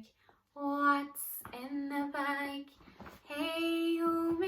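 A woman singing a children's song unaccompanied, ending on a long held note.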